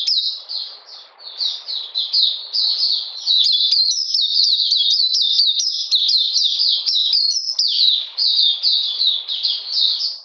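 White-eye (mata puteh) singing in its cage: a fast, nearly continuous twittering song of high, quickly repeated slurred notes, with a brief dip about a second in.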